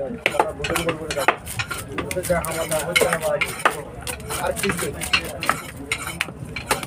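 Irregular clicks, taps and scrapes of a long knife working through a large scaled Indian salmon on a wooden chopping block.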